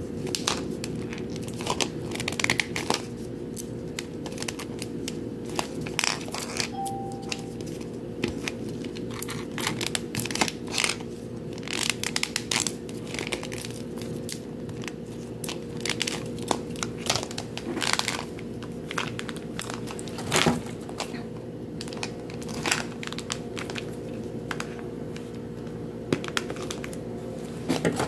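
Plastic crinkling and crackling in irregular bursts, with occasional clicks, as hands handle and peel open a Mini Brands plastic capsule ball and its wrapping. A steady low hum runs underneath.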